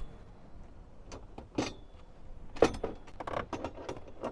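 Steel tubes of a PLM rear crossbar clinking and knocking against each other and the car's body as they are handled and fitted into their mounting holes: a few sharp clanks, the busiest run near the end.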